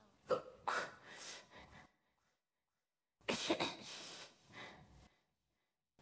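A woman hiccuping: two sharp hiccups close together near the start, then another about three seconds in, each followed by breathy sound that fades out.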